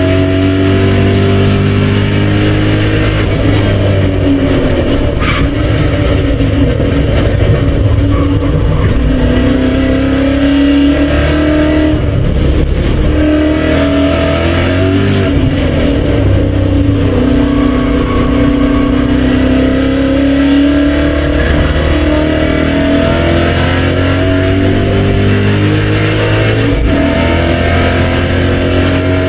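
BMW M5 E39's 4.9-litre V8 under hard acceleration on track. The engine pitch climbs through the revs and drops back at each gear change, several times over.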